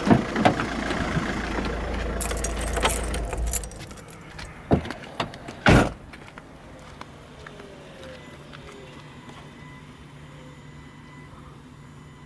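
VW Golf 5's 1.9 TDI diesel engine idling with clicks and rattles, then shut off about three and a half seconds in. Two sharp knocks follow, then a faint steady hum.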